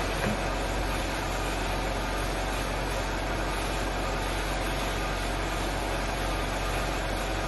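5-axis dry chairside dental milling machine running: a steady, even mechanical whir and hiss with a constant low hum underneath.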